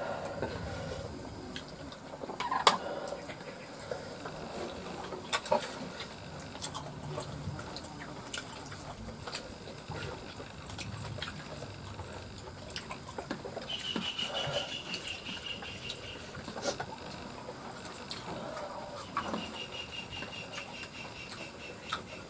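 Quiet outdoor ambience during a meal: scattered small clicks and taps of hands and plates. Twice, about two thirds and then nine tenths of the way in, a high rapid trill runs for about two seconds.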